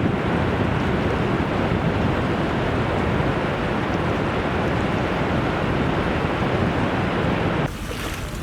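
Ocean surf: a steady rush of waves. Near the end it cuts suddenly to a quieter, hissier water sound.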